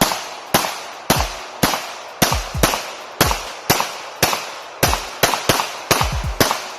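A rapid string of gunshots, about fourteen in a row at roughly two a second, coming a little faster toward the end, each crack followed by a short decaying echo.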